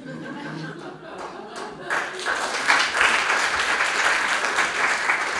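Audience applauding, the clapping swelling to full strength about two seconds in.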